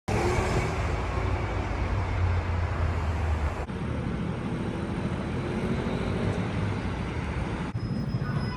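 Outdoor street ambience with a steady rumble of road traffic, breaking off abruptly twice as the footage cuts from one shot to the next.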